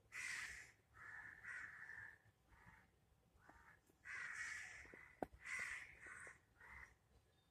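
A bird giving a series of about eight harsh calls in a row, some short and some drawn out, with a sharp click about five seconds in.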